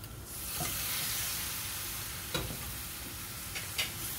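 Raw prawns hitting a hot metal kadai of fried onion masala and sizzling, the sizzle starting suddenly about a third of a second in and holding steady. A metal spatula stirring and scraping against the pan gives about four short clicks.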